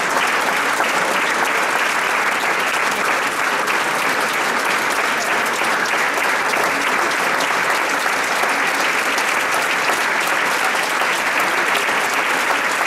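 Audience applauding: a large crowd clapping steadily without a break.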